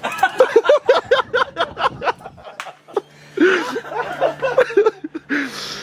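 Men laughing: a quick run of ha-ha-ha pulses, several a second, then more laughter and exclaiming later on. A steady low hum comes in about halfway through.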